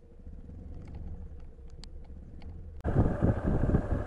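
Yamaha Serow 250 motorcycle riding on a wet road: a low engine and wind rumble with a few faint light ticks. About three seconds in, the sound cuts suddenly to a much louder, rough, gusty rumble.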